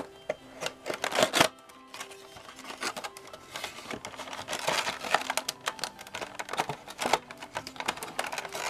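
A cardboard toy box being opened by hand: irregular scraping and rustling of the paperboard flap and packaging, loudest about a second in and again around five seconds in, over soft background music.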